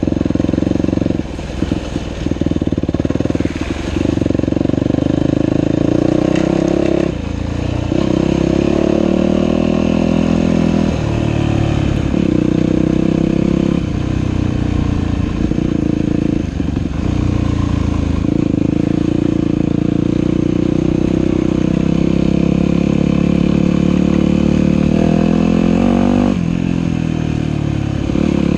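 Dirt bike engine running under way, its pitch climbing with the throttle and falling off in short dips every few seconds as the throttle is eased.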